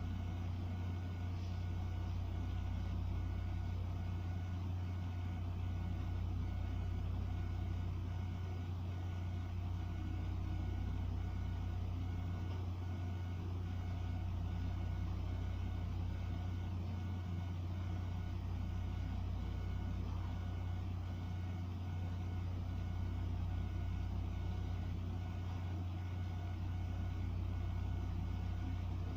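A steady low mechanical hum with several steady tones above it, pulsing slowly in its deepest part about every four seconds.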